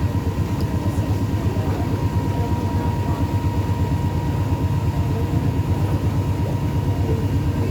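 Cruise boat's engine running steadily: a low, even rumble with a faint steady whine above it.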